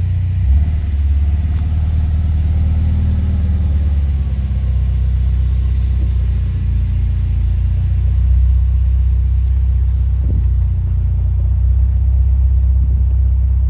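1969 Alfa Romeo 1600 Duetto's twin-cam four-cylinder engine running steadily just after a cold start, a deep even rumble.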